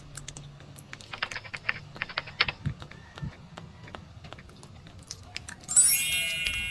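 Rapid keypress clicks as a phone number is typed in, a quick run of taps. Near the end a bright chime sounds suddenly, the loudest thing here, and fades out.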